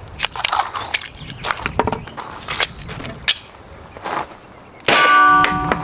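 Metallic clicks and knocks of a Glock pistol being worked by hand, a stoppage from mixed junk 9mm ammunition being cleared. About five seconds in comes a sudden loud bang followed by a ringing steel target.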